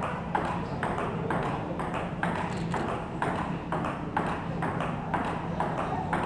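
Table tennis ball ticking back and forth in a steady forehand rally, each strike of ball on paddle and table a sharp click in an even rhythm.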